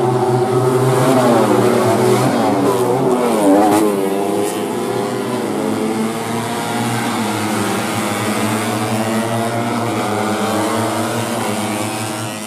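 Several four-stroke 150 cc underbone racing motorcycles running at full throttle, their engines revving and gliding up and down in pitch through gear changes as they pass. The sound eases slightly about four seconds in and runs on more steadily.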